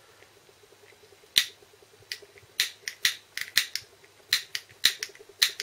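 A handheld lighter clicking repeatedly, about ten sharp, irregularly spaced clicks starting about a second and a half in, as it is struck to heat shrink tube on a hook shank.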